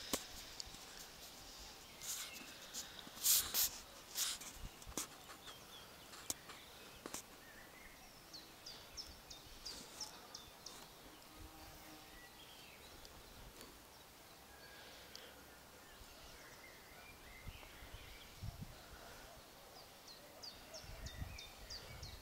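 Birds chirping in short, high calls over faint outdoor background noise, with a few louder sharp sounds about three to four seconds in and low bumps near the end.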